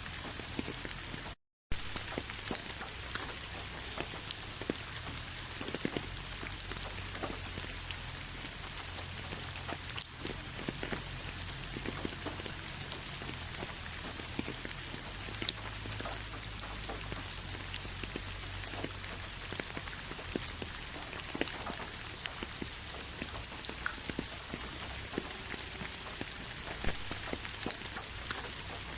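Steady rain, with many individual drops ticking over a continuous hiss and a low rumble underneath. The sound cuts out to silence for a moment about a second and a half in.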